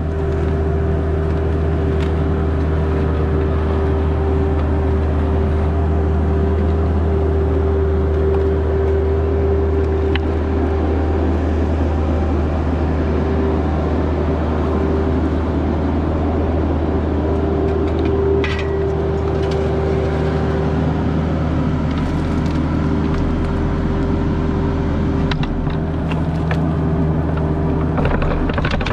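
Bobcat E26 mini excavator running steadily while digging: a constant low engine drone with a steady higher tone over it, and a few faint knocks.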